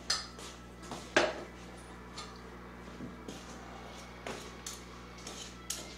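A few scattered clinks and knocks of a metal ladle and dishes being handled, the sharpest about a second in, over a steady low hum.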